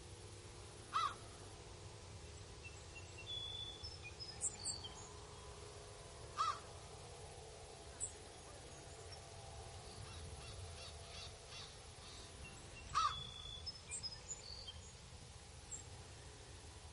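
Birds calling: three loud single harsh calls about six seconds apart, with fainter chirps and a quick run of short high notes between them, over a faint steady hum.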